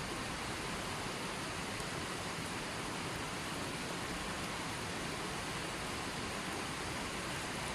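Running water, a steady, even rush with no music.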